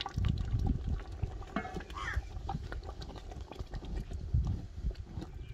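A long wooden spoon stirring thick, nearly cooked rice in a large aluminium pot, giving irregular low knocks and scraping against the pot. A short animal call sounds about two seconds in.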